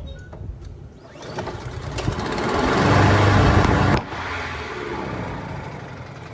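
Honda HRR2169VKA lawn mower engine being started after a carburetor replacement. It runs briefly, rising to its loudest about three seconds in, then cuts off suddenly about four seconds in, followed by a fainter steady noise. The owner puts the stop down to the mower being out of gas.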